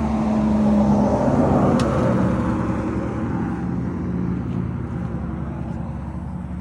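Small 420cc gas engine of an AGT Industrial H13R mini-excavator running at a steady speed, easing off a little in loudness toward the end.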